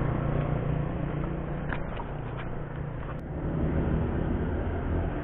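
Steady low rumble of road traffic, with a few faint clicks about two seconds in and one sharp click just after three seconds.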